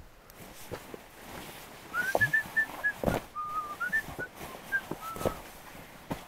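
A person whistling a short tune of quick notes that step up and down, over rustling and a few knocks as gear is handled.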